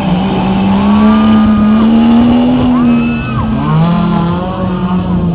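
Off-road race vehicle's engine running hard under load, its pitch climbing slowly, dropping about three seconds in as the revs fall, then climbing again.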